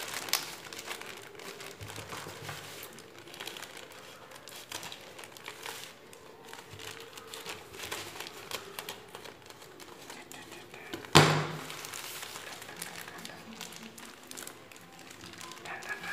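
Plastic courier mailer crinkling and rustling as it is handled and cut open with scissors, with many small clicks and snips. One sharp knock stands out about two-thirds of the way through.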